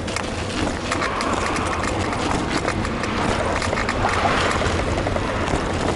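Wind buffeting the microphone with a steady low rumble, mixed with the rolling noise and irregular clicks and rattles of a bicycle being ridden.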